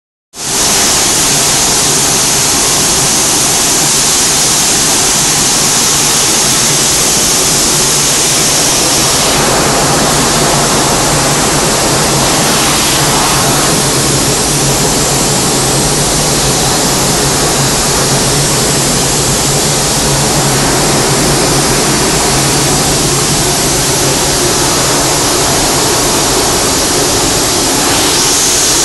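Battery-washing machine running, its sprays of 25% sulfuric acid solution making a steady, loud rushing like falling water, over a low steady hum.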